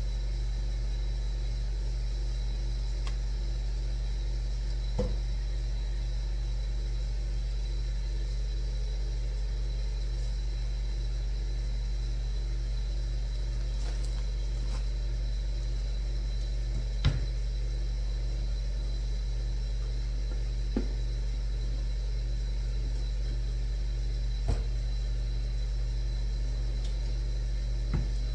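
Steady hum of a running kitchen appliance's fan and motor, with about five light knocks scattered through it, the sharpest about two-thirds of the way in.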